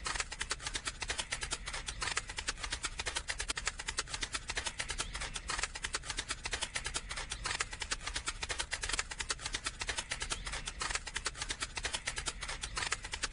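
Rapid, evenly spaced clicking, several clicks a second, running on steadily.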